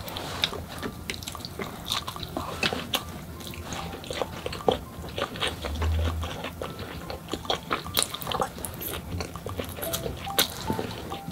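Close-up eating sounds: biting into and chewing a piece of fried food, with many small sharp clicks and smacks of the mouth. A dull low thump comes about six seconds in.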